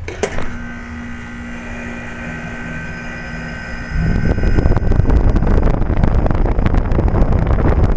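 A 1998 Trane XL1800 heat pump's outdoor condensing unit starting in cooling mode. A steady hum with held tones comes first; about four seconds in, a much louder steady rush begins as the unit comes up to full running.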